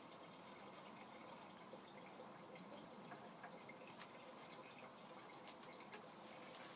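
Near silence: faint background hiss with scattered soft ticks.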